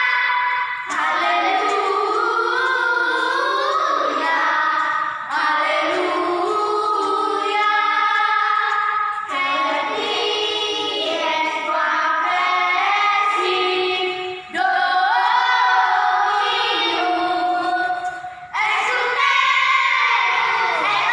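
A group of children singing a song together, phrase after phrase, with brief breaks between phrases every few seconds.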